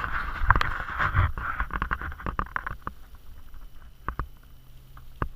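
Muffled scraping and knocking through a sealed camera housing, dense for the first few seconds, then thinning to a few separate knocks.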